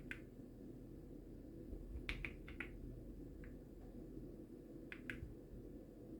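Keysme Lunar 01 mechanical keyboard keys pressed a few at a time: a click at the start, a quick cluster of four or five clicks about two seconds in, and a pair of clicks about five seconds in, over a steady low hum.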